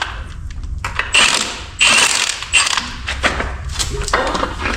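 Hand tools ratcheting and metal parts clinking in a few short bursts as bolts are worked off the car's drivetrain.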